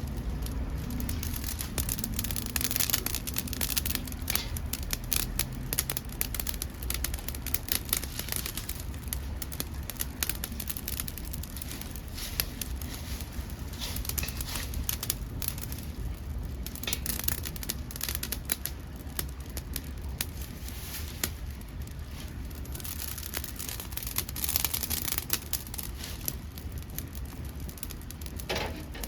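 Dead podocarpus (maki) wood burning in a homemade secondary-combustion wood-gas stove, crackling and popping irregularly throughout, over a steady low rumble.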